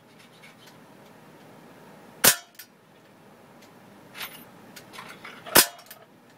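Sig Sauer P320 CO2 air pistol firing twice, about three seconds apart: two sharp cracks, the first a little over two seconds in and the second near the end.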